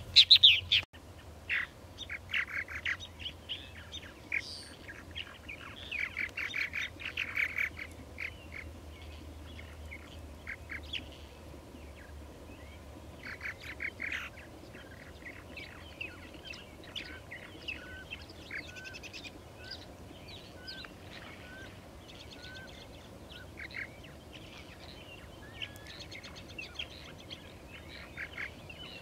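A colony of purple martins calling: rapid runs of gurgling, croaking chirps in repeated bursts, beginning with a loud close call. Near the middle a bird gives short rising notes about once a second.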